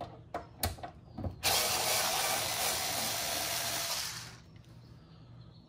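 A few light clicks, then a small electric screwdriver runs for about three seconds, backing out the small Phillips screw that holds an expansion card's bracket.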